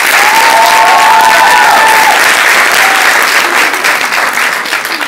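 An audience applauds loudly, with a high drawn-out cheer over the clapping in the first two seconds. The applause dies down near the end.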